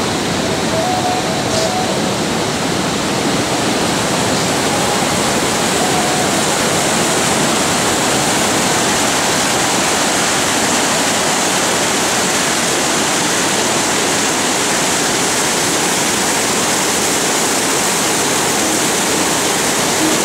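Steady rush of a fast-flowing mountain river or stream, an even, unbroken wash of water noise.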